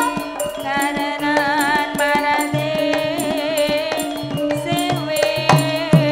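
Live Javanese campursari band playing: kendang hand-drum strokes, including deep strokes that drop in pitch, with keyboard and metallophone strikes under a wavering lead melody.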